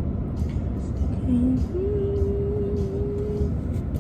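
Steady low rumble of a car's engine and road noise heard inside the cabin in slow traffic. A short, low held note comes about a second in, then a longer steady note of about a second and a half.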